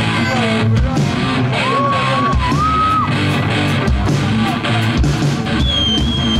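Live rock band playing loud, with steady drum hits and electric guitar. A bent lead note is held through the middle, and a high sustained note comes in near the end.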